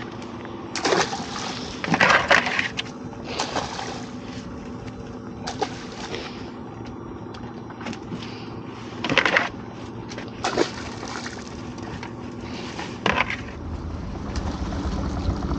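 Irregular knocks and clatters as spider crabs and a lobster pot are handled on a dinghy's gunwale: about seven separate sharp knocks spread out with quieter handling between.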